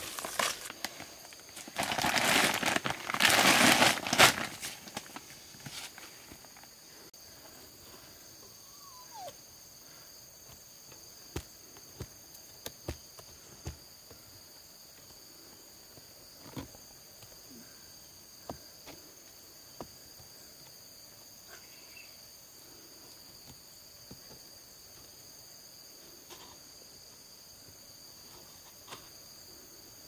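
Footsteps in rubber boots on dry leaves and twigs, loudest about two to four seconds in. Then faint crinkles and ticks as fingers pick at the knotted neck of a plastic sack, over a steady high insect chorus.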